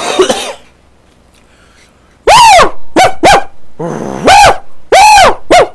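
A dog barking loudly about seven times in quick succession, each bark rising and then falling in pitch. There is a short noisy burst at the very start, before the barking.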